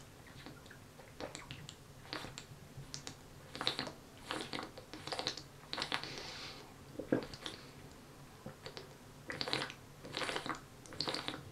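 A man drinking from a large bottle in long swigs: irregular gulps and swallows with liquid glugging in the bottle.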